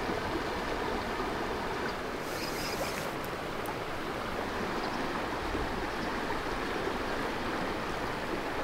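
Steady rushing of flowing river water, an even wash of noise, with a short brighter hiss about two seconds in.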